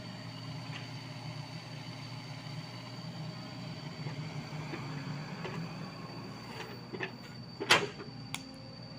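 Sany SY55C mini excavator's diesel engine running steadily under work, with a thin steady high whine over it. Near the end a few small knocks and then one sharp, loud metallic clank as the bucket works the soil.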